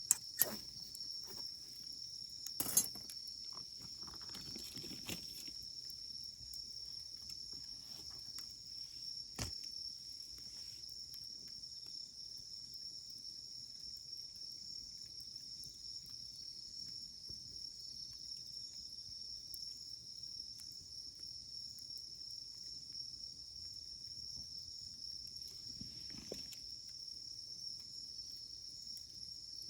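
Wood fire crackling, with a few sharp pops from the burning logs: two near the start, the loudest about three seconds in, and another near ten seconds. Behind it runs a steady high chirring of insects, crickets by the sound of it.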